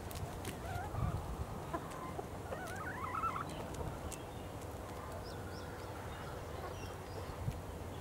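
Domestic chickens clucking softly as they forage, with a quick wavering run of calls about three seconds in.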